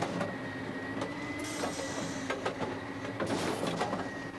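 Railway ballast tamping machine working. A steady machine hum carries sharp clicks, with a burst of hiss about every two seconds.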